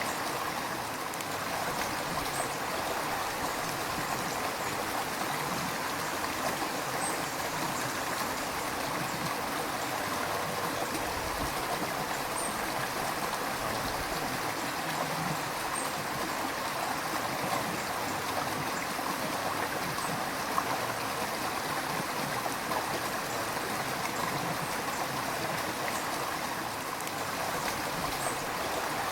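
River water flowing in a steady, even rush with some gurgling.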